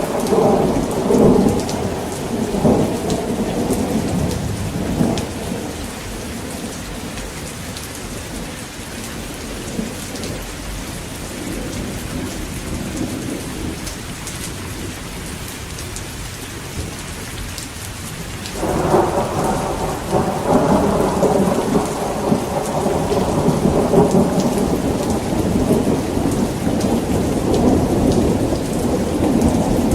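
Heavy rain falling steadily with rolling thunder. One rumble dies away over the first few seconds, and another breaks in suddenly about two-thirds of the way through and rolls on to the end.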